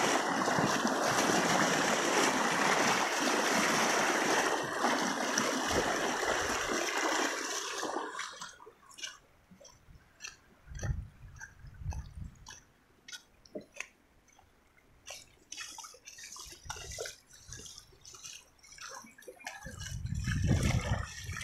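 Shallow river water flowing fast over sand close to the microphone, a loud, even rush that stops about eight seconds in. After that come faint scattered clicks and a few low thumps, the loudest near the end.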